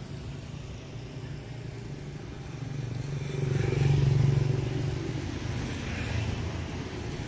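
Street traffic: a motor vehicle passes, growing louder to a peak about four seconds in and then fading, over a steady low engine hum.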